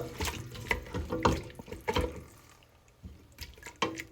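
Chicken being stirred in a pan with a cup of water just added: a few scrapes and clinks of the utensil on the pan and wet sloshing, with a short pause in the middle.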